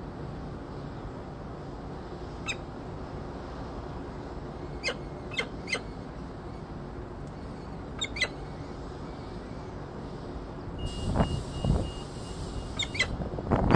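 Peregrine falcons at the nest during a feeding: a few short, sharp chirps, in ones and quick pairs, over a steady low rumble. Low gusts of wind rumble on the microphone near the end.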